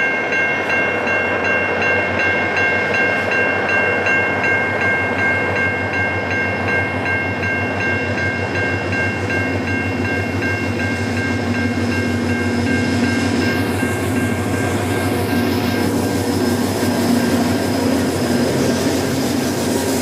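Level crossing warning bell ringing steadily, about three strokes a second, as a diesel freight train approaches the crossing. From about halfway the locomotive's engine grows louder and covers the bell as the train reaches the crossing.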